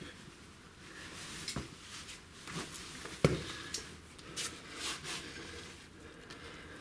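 A person climbing up through a narrow rock crevice in a cave: scattered scrapes, rustles and knocks of hands, body and clothing against the rock, with one sharp knock about three seconds in.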